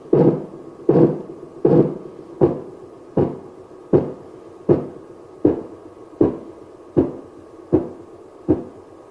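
Simulated Korotkoff sounds from a blood-pressure training manikin's arm, played through an external speaker: evenly spaced heartbeat thumps about 80 a minute over a steady electronic hum. The beats stop near the end, marking the fall of cuff pressure below the set diastolic value.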